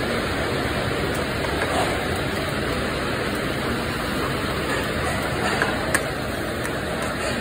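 Steady rushing noise of commercial kitchen ventilation, with a few light clicks and one sharper click about six seconds in.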